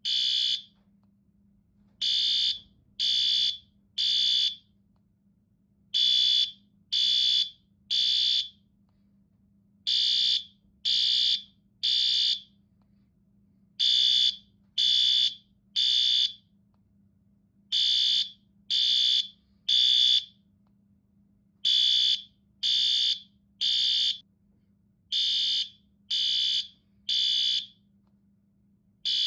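Fire alarm sounding its high-pitched beep in groups of three, about one beep a second with a pause before each group, repeating every four seconds. This is the temporal-three pattern of the fire evacuation signal.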